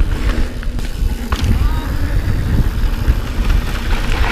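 Wind buffeting the camera microphone and tyre rumble as a mountain bike rolls fast down a rough dirt trail, with scattered clicks and rattles from the bike over the bumps.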